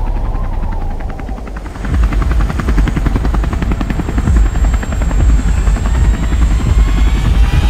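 Helicopter in flight, its rotor blades beating fast and steadily. The beating dips briefly about a second in, then comes back louder.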